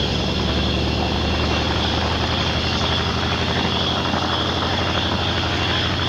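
Douglas A-1 Skyraider's Wright R-3350 eighteen-cylinder radial engine running steadily as the aircraft taxis, with an even propeller beat.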